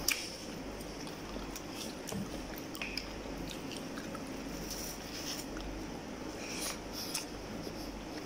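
A man chewing a mouthful of goat meat and rice, with scattered small wet mouth clicks and the soft squish of fingers working rice and sauce on a paper plate.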